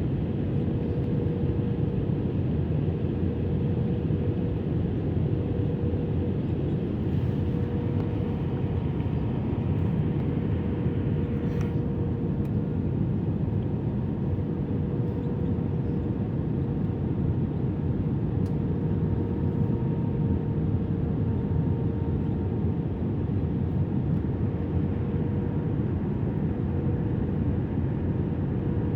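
Cabin noise inside an Airbus A320-200 on the ground after landing: a steady engine and airflow hum with a faint constant tone, the engines running at a low, even setting while the aircraft taxis.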